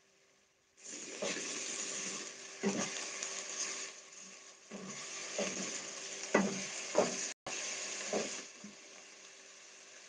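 Chopped onions sizzling in hot oil in a metal pot, stirred with a wooden spoon that knocks against the pot several times. The sizzling starts about a second in and drops away near the end.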